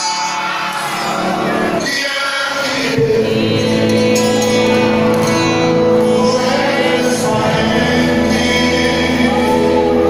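Live gospel music with a singer, played loud through a sound system in a large hall; the band fills out with sustained low notes about three seconds in.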